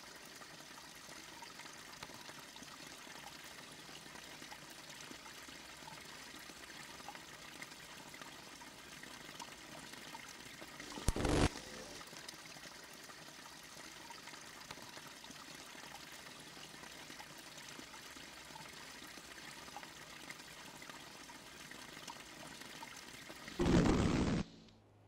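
A small brook spilling steadily from a torn-up earthen bank into a muddy stream channel, a constant trickling pour. A brief loud rush breaks in about eleven seconds in and again just before the end.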